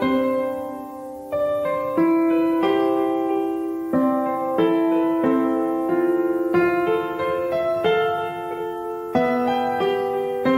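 Background music on piano: notes and chords struck about once a second and left to ring.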